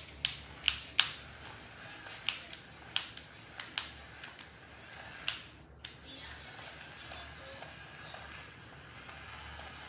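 Small electric motor and propeller of a toy flying disc whirring faintly and steadily, with a run of about ten sharp clicks in the first five seconds.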